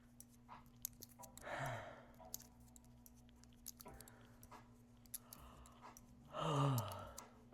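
A person's voiced sighs, each falling in pitch: a short one about a second and a half in and a longer, louder, breathier one near the end, with faint clicks in between.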